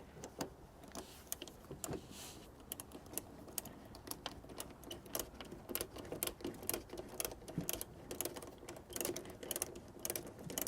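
Faint, irregular light clicking of a hand tool tightening the battery cable connection, growing quicker near the end.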